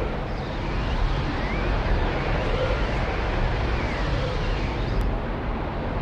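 Swirling vortex sound effect: a steady deep rumble under a rushing, airy noise, with faint whistling tones gliding up and down over it.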